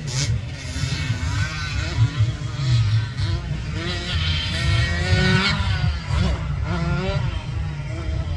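Small motocross dirt bike engines revving up and down as they ride the track, the pitch climbing and dropping several times as they accelerate and shift. A heavy low rumble sits underneath throughout.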